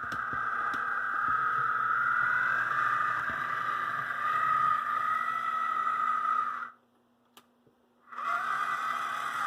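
AC Gilbert Alco diesel model locomotive running on the track with its shell on: a steady high whine from the new motor and drive shafts, made noisy by the shell amplifying the drive sound. It stops about two-thirds of the way through and starts again about a second and a half later.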